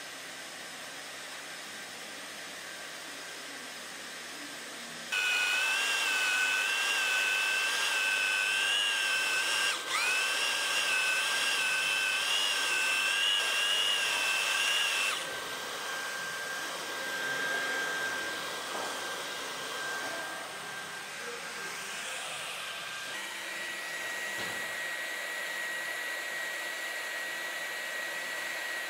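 Weldy EX2 handheld plastic extrusion welder running: a steady hot-air hiss under a motor whine. The whine gets louder and stronger from about five seconds in to about fifteen seconds, dipping briefly near ten seconds, then settles back and later steps up slightly in pitch.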